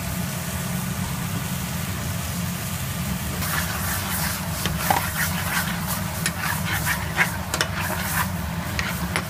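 Metal spoon scraping and clinking against a steel pan as a thick curry sauce with chicken and peppers is stirred hard, starting about three and a half seconds in, with quick irregular strokes. A steady low hum runs underneath.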